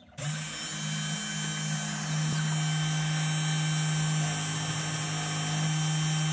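Desktop CNC machine's spindle motor starting abruptly and running steadily at the start of a job, the engraving bit spinning in the air before it plunges into the Mylar.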